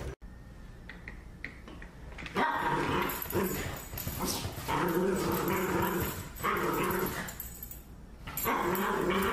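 Small long-haired dog growling and grumbling in play with a toy: four drawn-out, drawling vocal outbursts of about a second each, starting a couple of seconds in.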